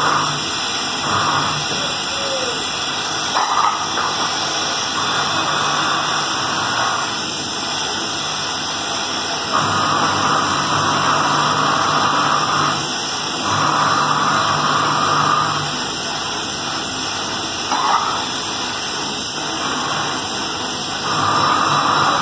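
Gas welding torch flame hissing steadily as it heats the seam of a brass lota being joined. A humming tone swells up for a few seconds at a time, several times.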